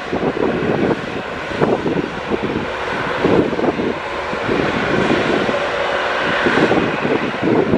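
Jet airliner engines running, with gusty wind buffeting the microphone.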